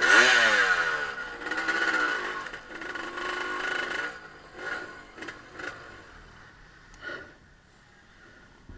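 An off-road vehicle's engine revving hard, falling in pitch and fading away over several seconds, with a few faint knocks.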